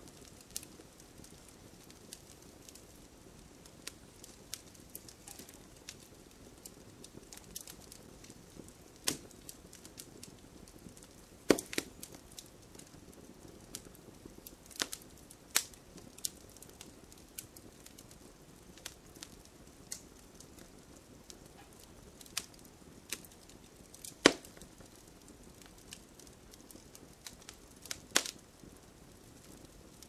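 Fire crackling: irregular sharp pops and snaps over a low, steady hiss, with a few much louder snaps scattered among the small ones.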